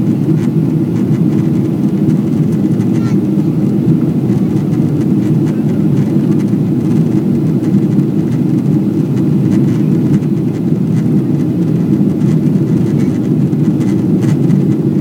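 Steady cabin noise inside a Boeing 777-300ER in flight: the deep, even rush of its GE90 turbofan engines and the air streaming past the fuselage, unchanging throughout.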